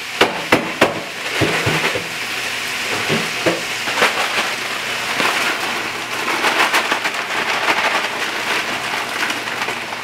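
Onions and bacon hog jaws sizzling and crackling in hot fat in a pot as frozen collard greens go in, with a few sharp knocks in the first second.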